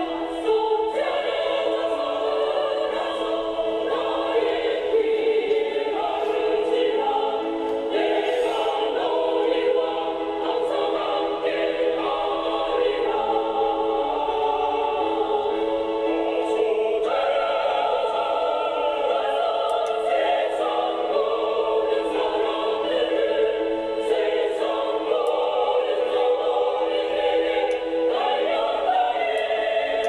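Choir singing a hymn.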